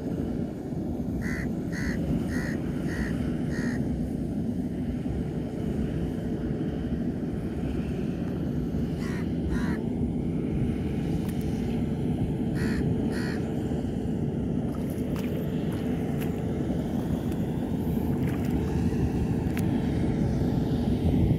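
Combine harvester engine running steadily as it cuts rice, a constant drone with a steady hum in it. A bird calls over it in short harsh calls: a run of five evenly spaced calls about a second in, then a pair near the middle and another pair a few seconds later.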